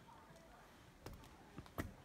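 Very quiet, with three short soft knocks in the second half; the last, a little before the end, is the loudest.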